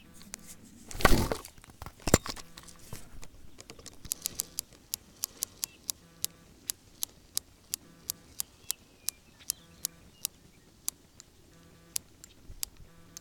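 Fishing reel being cranked to bring in the line after a bad cast: a steady string of sharp ticks, about two to three a second, after a rustling bump and a knock near the start.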